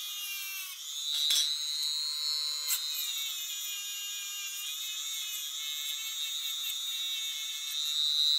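Small handheld rotary tool with a little disc spinning at high speed against diecast metal model car parts, a steady high-pitched whine whose pitch shifts slightly as it is pressed on. Two sharp clicks sound in the first three seconds.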